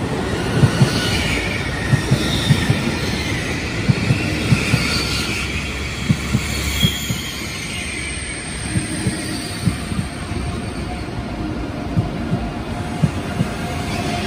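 Deutsche Bahn ICE 3M high-speed train running slowly into the platform, its wheels knocking over rail joints at irregular intervals over a low rumble. Brief high wheel squeals come in the first half.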